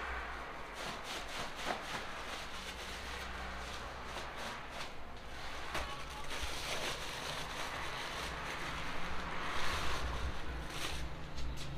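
Rustling and crinkling of a woven plastic flour sack as it is emptied and handled, in short crackly bursts over a steady low hum.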